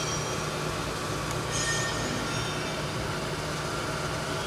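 Steady low hum and rumble of a powered-up Amada Aries 245 hydraulic turret punch press idling, with no punching strokes.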